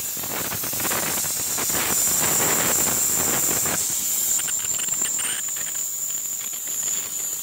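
Jensen Model 70 steam engine's boiler whistle blowing a steady high whistle over the hiss of escaping steam, its valve opened all the way to blow off the boiler pressure.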